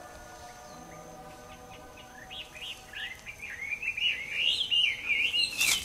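Small birds chirping and twittering in quick rising-and-falling notes, starting about two seconds in and growing louder and busier toward the end, with one sharp click near the end. A steady held musical drone fades out over the first two seconds.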